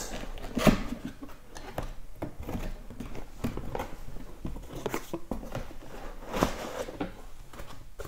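A box being opened and its packaging handled. There is irregular rustling and scraping with scattered light knocks, and the loudest comes about six and a half seconds in.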